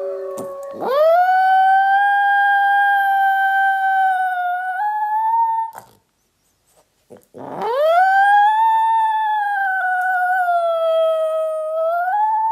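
Italian Greyhound howling: two long howls, each about five seconds, with a second and a half of silence between them. Each one rises steeply at the start, then holds a steady pitch and lifts slightly at the end.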